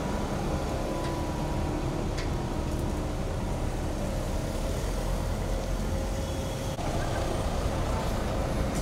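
Car engines running and slow traffic, a steady low rumble, with a couple of faint clicks in the first few seconds.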